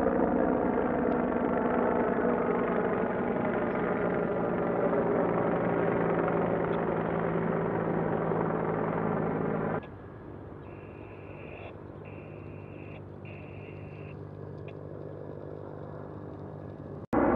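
Bell 412 helicopter flying overhead: a steady drone of rotor and turbine. About ten seconds in it suddenly drops to a quieter, more distant drone, over which a high tone sounds in a few short stretches.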